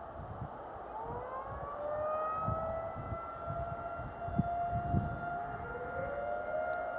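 Distant outdoor warning sirens winding up for a test: one starts about a second in, rising in pitch and then holding a steady wail, and a second joins with its own rise about five seconds in. A low rumble runs underneath.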